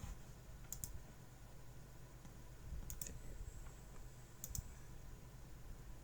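Computer mouse clicks: three quick pairs of clicks spaced a second or two apart, over a faint low hum.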